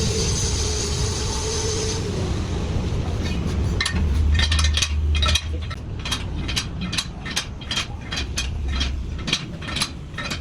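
Workshop noise over a steady low rumble: a machine whine for the first couple of seconds, then a quick run of sharp metallic clinks, about three a second.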